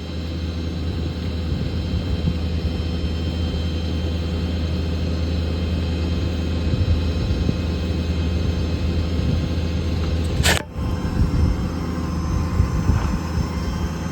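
Ford F550 service truck's 6.7 Power Stroke diesel running its hydraulic pump for the outriggers, a steady low drone that comes up under load at the start. A single sharp click about ten and a half seconds in.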